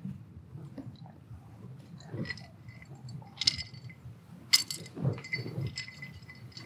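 Ice cubes clinking against a drinking glass as it is tipped and lowered, a few sharp clinks with a short ring, the loudest about four and a half seconds in, along with soft mouth and swallowing sounds.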